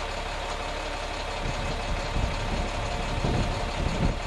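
Tour bus engine idling with a steady hum. From about a second and a half in, irregular low thumps and rumbles come over it.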